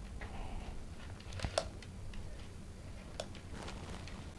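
Faint handling noise from a string of LED fairy lights, its wire being run through the fingers to check for a break, with a few small clicks.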